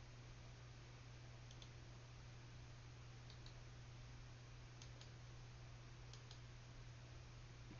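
Near silence over a steady low electrical hum, with four faint double clicks about a second and a half apart, from a computer mouse being clicked.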